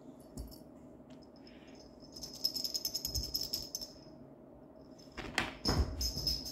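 A small bell on a cat toy jingling in quick rapid shakes for about two seconds as a cat plays with it. Then come a few soft thuds of paws on the wooden floor as a kitten runs in, with the bell jingling again near the end.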